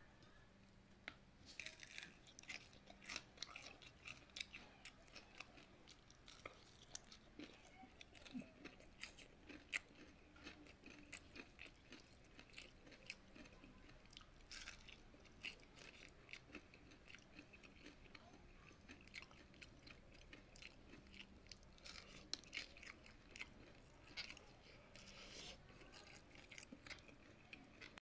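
Crisp fried fritter of shredded banana and sweet potato being bitten and chewed close by, a run of faint, irregular crunchy crackles.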